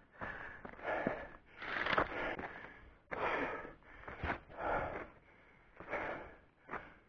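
A man breathing hard, heavy in-and-out breaths about once a second, winded from climbing a steep trail. A few short footfalls on the rocky dirt fall between the breaths.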